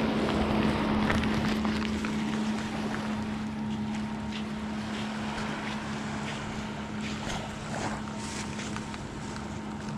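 A motorboat engine droning steadily at one pitch, with wind on the microphone and a few small handling knocks.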